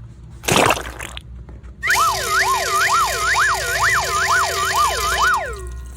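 A brief burst of noise, then a siren-like wail that swoops up and down in pitch about eight times over some four seconds before it stops.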